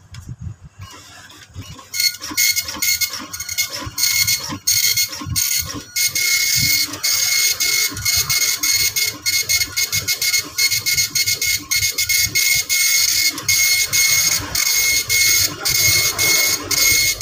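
Epson LQ-2190 dot-matrix printer printing a test page. About two seconds in, the print head starts hammering out lines in a loud, high-pitched rasping buzz. Short breaks between passes come as the paper steps forward.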